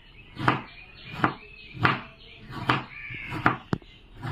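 Kitchen knife chopping carrot on a cutting board into small pieces, about six sharp cuts a little under a second apart.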